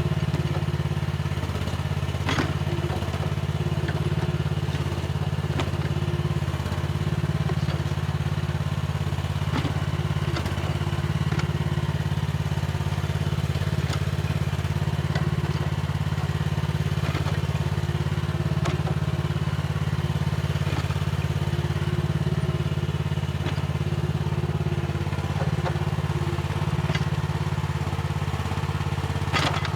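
Mini excavator's diesel engine running steadily under working load, with scattered knocks and clatter from the machine at work.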